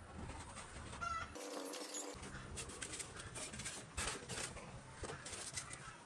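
A hen clucking, with scattered light clicks and taps.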